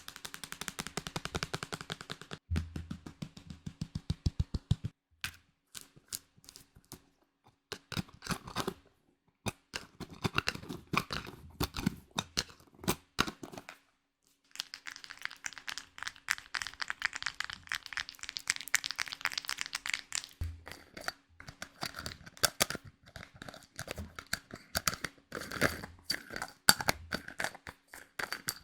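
Close-miked ASMR trigger sounds: rapid crisp tapping, clicking and crackling that changes texture every few seconds, with a brief pause about halfway.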